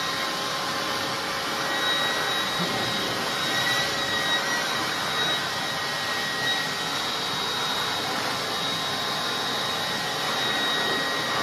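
Cordless handheld blower running steadily as it dries a wet dog's thick coat: an even rush of air with a steady high whine.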